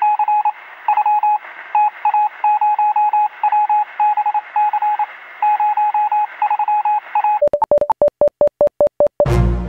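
An electronic beep tone switched on and off in short and longer pulses, with irregular gaps, sounding thin and phone-like. Near the end it changes to a quicker, even run of lower beeps with clicks, about four a second, and music with heavy low hits comes in just before the end.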